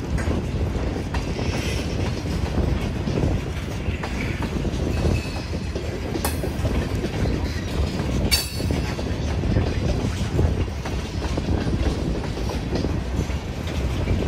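Freight cars rolling past at a grade crossing: a steady rumble of steel wheels on rail with clickety-clack over the joints, and two sharp metallic bangs about six and eight and a half seconds in.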